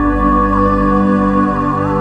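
Background music: an ambient track of long, held chords, with a few short sliding notes.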